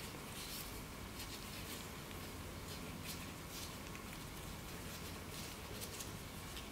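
Soft, scattered rustles and squishes of gloved hands scooping minced pheasant filling and pinching dumpling wrappers shut, over a low steady hum.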